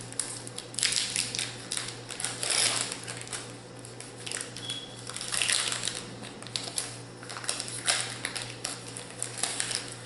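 Foil booster-pack wrappers crinkling and rustling in irregular bursts as they are torn open and handled.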